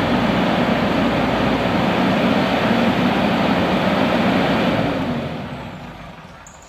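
Diesel tractor engine running loudly with a steady low hum, then fading away over the last second or two as the tractor drives off.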